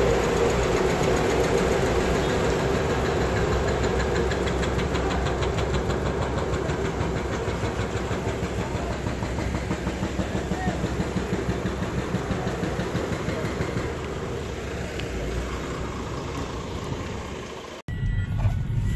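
Steady engine and machinery noise of a docked roll-on/roll-off ferry, slowly fading, with faint voices; it stops abruptly near the end.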